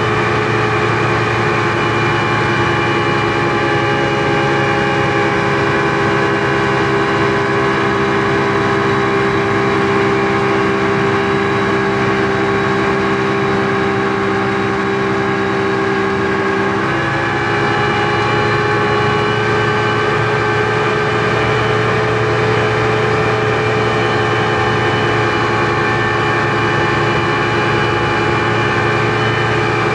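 Speedboat's outboard engine running steadily, heard from inside the cabin as a loud drone with several steady tones. The engine note shifts slightly a little past halfway.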